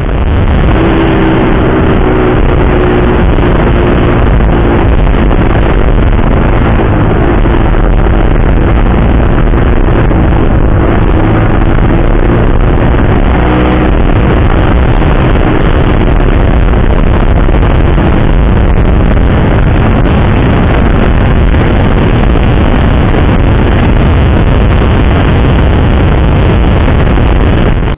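Wind rushing over a bike-mounted camera's microphone as a Yamaha sport motorcycle rides at speed, loud and steady. Under it is an engine hum that wavers slightly in pitch during the first half.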